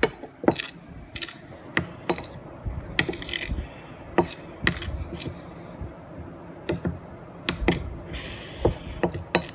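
A spoon clinking and scraping against a plate while stirring and mashing a thick cornstarch-and-shampoo slime paste, in irregular taps about one or two a second.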